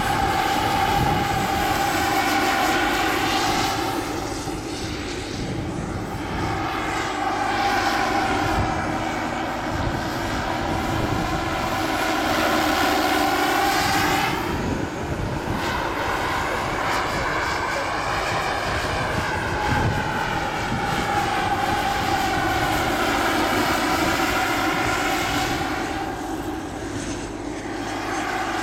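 Turbine-powered scale model Bo 105 helicopter in flight: a steady turbine whine over the chop of the main rotor. The tone sweeps up and down and the sound dips three times as it flies passes back and forth.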